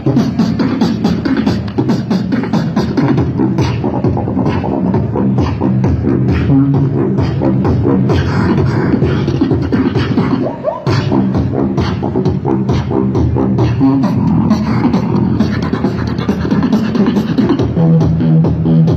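Beatboxing amplified through a handheld microphone and portable speaker: fast drum-like clicks and snare hits over sustained low hummed bass notes, with a brief break a little before halfway.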